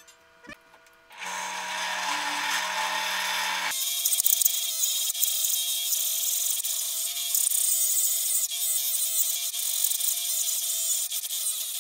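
Kolavo benchtop drill press switched on about a second in and running, then its hole saw cutting into plywood from about four seconds in: a steady, high-pitched cutting noise with a few sharp spikes.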